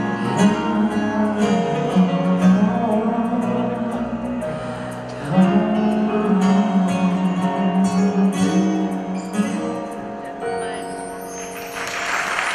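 A male singer holding long sustained notes over guitar accompaniment as the song closes. Near the end the music gives way to a rising wash of noise, with applause beginning as he bows.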